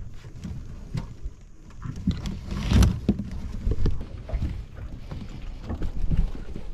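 Irregular knocks and bumps aboard a small boat, with one louder burst about three seconds in.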